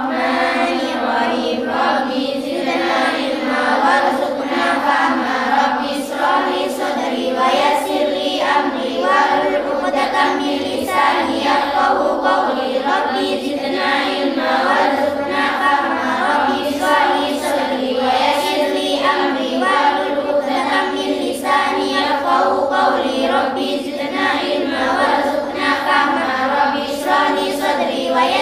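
A group of young girls chanting a prayer together in unison to a sing-song melody.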